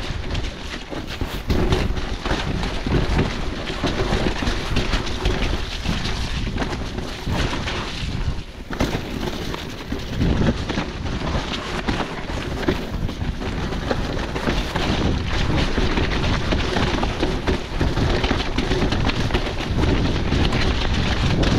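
Wind rumbling on the microphone and tyres rushing over a wet trail, with an electric mountain bike clattering as it jolts over bumps on the descent.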